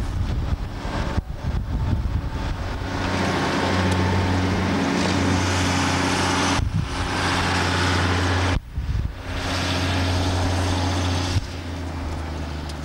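Diesel engine of a DE II diesel-electric multiple unit running with a steady drone as the railcar pulls away and runs past along the track. The sound breaks off briefly a few times and grows somewhat quieter near the end.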